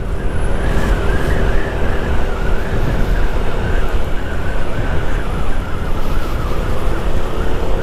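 Honda Vario 160 scooter's single-cylinder four-stroke engine running steadily under way, with a slightly wavering high whine over a dense low wind rumble on the microphone.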